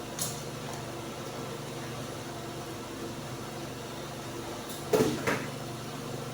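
Kitchen handling sounds over a steady low hum: a light click just after the start, then two sharp knocks close together about five seconds in, as the cook works at the pot.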